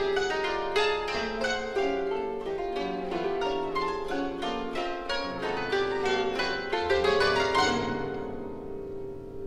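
Kotos and a chamber orchestra playing contemporary music: a dense run of quick plucked notes over a held tone. The plucking thins out and fades about eight seconds in.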